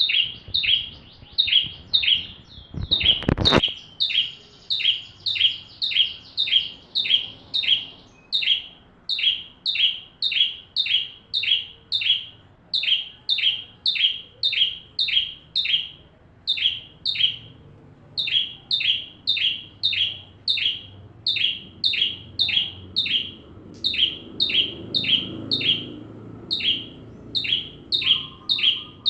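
Bar-winged prinia (ciblek) singing in full, fast voice: a long string of short, high, falling double chirps at about two a second, with a brief pause partway through. A short thump comes about three seconds in.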